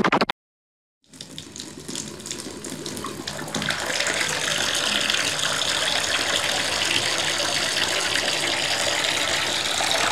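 A rapid pulsing sound cuts off at the very start. After a moment of silence, a stream of liquid splashing into water begins faintly about a second in, grows louder over the next few seconds, then runs steadily.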